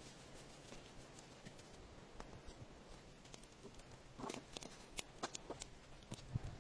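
Faint scattered clicks and rustling, as of small things being handled, with a few louder rustles about four to five seconds in.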